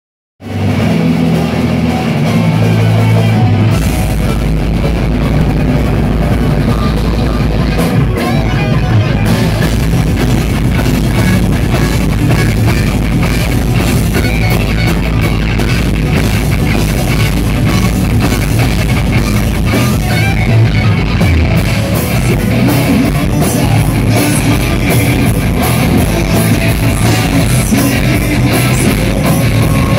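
Live rock band playing loud: distorted electric guitars, bass and a drum kit, kicking in abruptly about half a second in and going on without a break.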